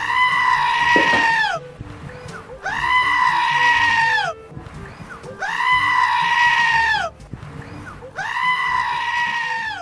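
A goat screaming four times. Each scream is long, loud and human-like, holding its pitch and then dropping at the end, and they come a little under three seconds apart.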